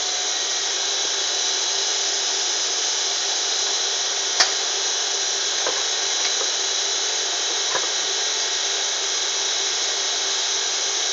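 Steady, loud noise of factory machinery running, unchanging throughout. A sharp click sounds about four seconds in, with a few fainter clicks over the next few seconds, as a metal bracket is handled.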